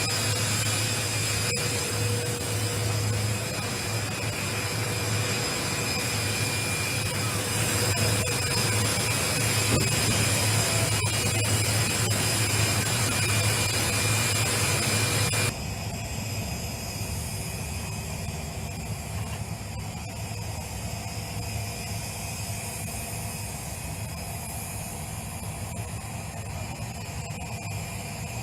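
Jet aircraft engines running steadily, a loud roar with a high whine over it. About halfway through the sound drops suddenly to a quieter low rumble with fainter whine.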